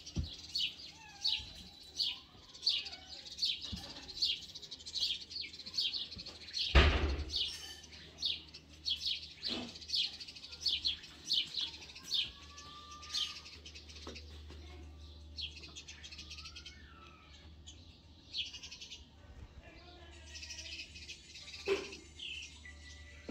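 Small birds chirping, a quick run of short high chirps at about two a second, thinning to softer scattered calls and whistles in the second half. A single thump about seven seconds in.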